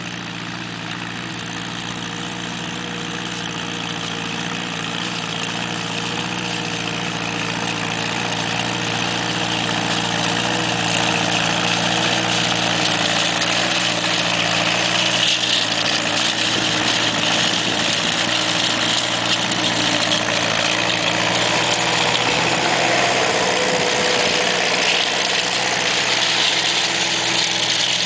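1952 Case VAC tractor's four-cylinder engine running steadily under load as it pulls a spring-tooth digger through loose dirt. It grows louder over the first dozen seconds as the tractor comes near, then stays loud.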